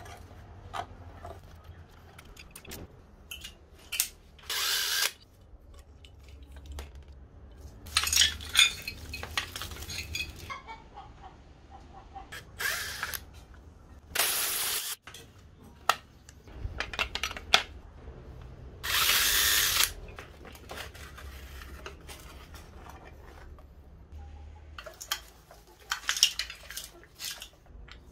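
Several short bursts of a hand-held power tool, the longest about a second, with clicks and knocks of tools being handled in between.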